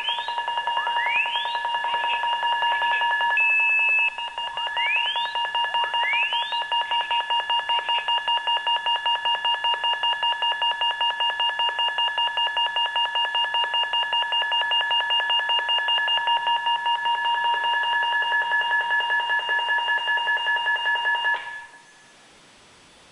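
Electronic fire alarm sounding: loud steady tones with a few rising sweeps, then a fast pulsing tone that cuts off suddenly near the end.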